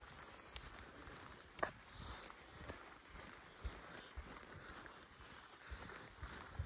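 Forest ambience with a short high-pitched chirp repeated about three times a second, and soft low thuds of footsteps on the trail.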